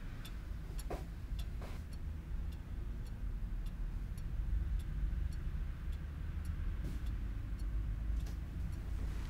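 Steady, even ticking, about two ticks a second, over a low steady rumble.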